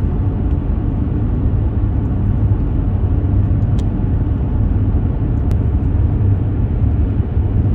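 Steady low rumble of a car driving on the road, tyre and engine noise without change.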